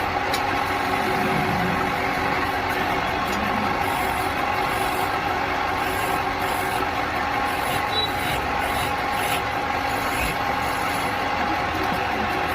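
A machine running steadily, a constant mechanical hum with a steady tone that does not change.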